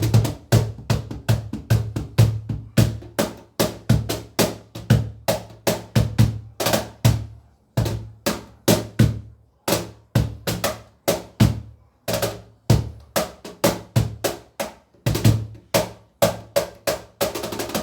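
A deep-toned hand drum played solo in a rhythmic pattern, mixing deep bass strokes with sharper slaps. It runs at a few strokes a second, with short breaks every few seconds.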